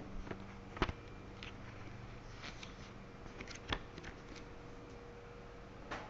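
Faint handling noises: light rustling and a few soft knocks as objects are moved about, the clearest just under four seconds in.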